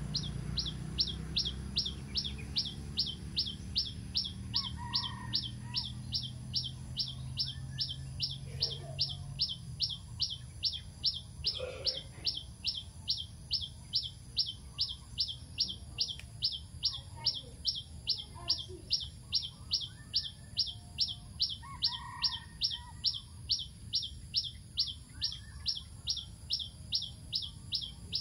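A bird repeating one short, high, falling chirp steadily about twice a second, over a steady high hiss.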